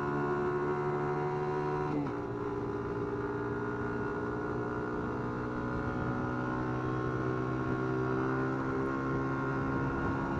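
Small 50cc Dax minibike engine running steadily under way. Its note drops briefly about two seconds in, then holds steady again.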